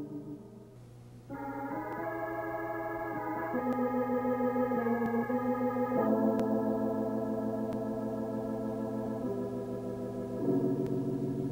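Slow background music of sustained chords, played on an organ-like instrument, that change every second or two with a slight wavering tremolo; it is softer for about the first second.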